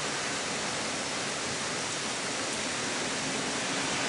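Steady, even rushing hiss of hurricane rain and wind, with no pauses.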